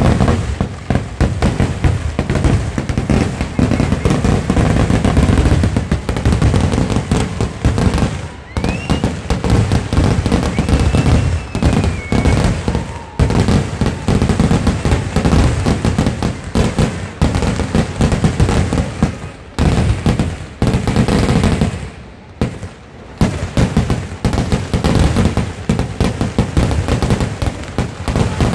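Kerala temple-festival fireworks (vedikettu) going off as a dense, continuous barrage of loud bangs and cracks. The barrage eases briefly about three-quarters of the way through, then picks up again.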